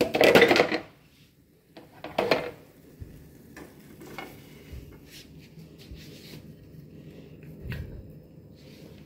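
A utensil scraping and knocking against a nonstick frying pan: a loud scrape right at the start, another about two seconds in, then a few light knocks.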